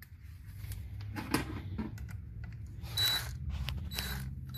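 Plastic radio mounting bracket creaking and clicking as it is handled and a screw is turned into it with a screwdriver: a few short scrapes and clicks.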